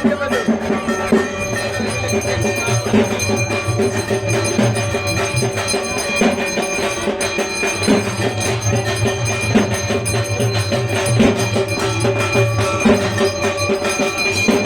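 Music: steady held tones with percussion strikes over them.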